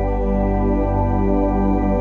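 Background music: slow, meditative new-age track of sustained synthesizer tones over a steady low drone.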